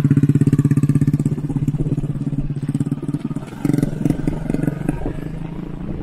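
Small motorcycle engine running at low speed as the bike, heavily loaded with sacks and grass, passes close and pulls away, its pulsing note fading over the first three seconds. From about halfway the sound turns rougher and more uneven.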